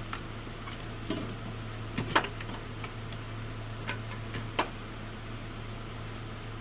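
Scattered clicks and knocks of parts being handled and fitted in a car's engine bay, about eight in all, the loudest about two seconds in, over a steady low hum.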